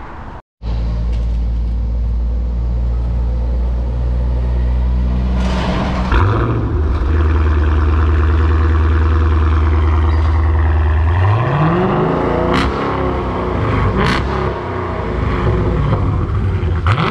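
Dodge Challenger Scat Pack's 392 (6.4-litre) Hemi V8 running through an exhaust with its mid mufflers deleted. It holds a steady note, rises about six seconds in and holds higher, then is revved up and down several times near the end.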